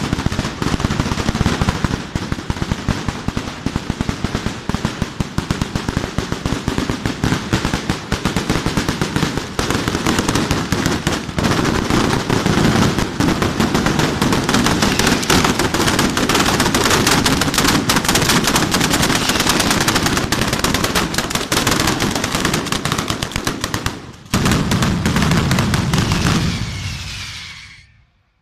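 Italian street batteria, a long chain of firecrackers laid along the road, going off in a dense, unbroken rattle of rapid bangs. It falters briefly a little after three-quarters through, then dies away to nothing just before the end.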